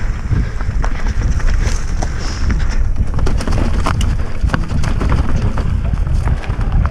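Wind rushing over the microphone of a mountain bike's rider-worn camera at speed downhill, with the bike rattling and knocking over loose dirt, leaves and stones in frequent sharp clicks.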